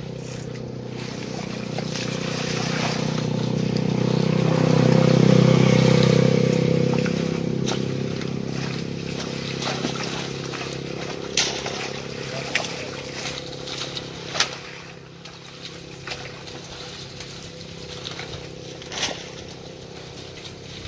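A small boat engine running steadily on the canal as it passes, growing louder to a peak about five seconds in, then fading away. A few sharp clicks and knocks from the net work come later.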